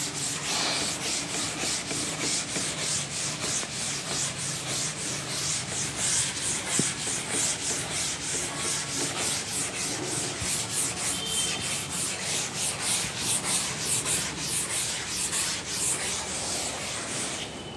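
A chalkboard duster rubbing chalk off a chalkboard in quick back-and-forth strokes, about two to three a second, stopping near the end.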